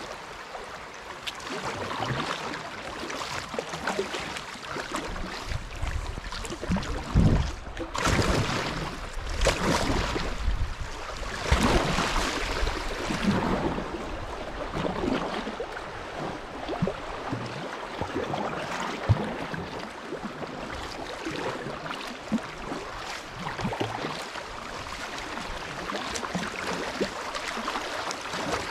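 Shallow river riffles rushing and splashing around a kayak's hull, with irregular splashes from double-bladed paddle strokes, the loudest about a third of the way in.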